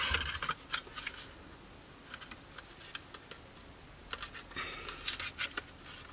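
Plastic model-kit parts and masking tape being handled on a cutting mat. Scattered small clicks and rustles, with a busier patch of rustling and taps a little past the middle.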